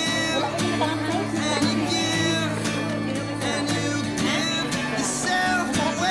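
Background music: a country-style song with plucked guitar and singing.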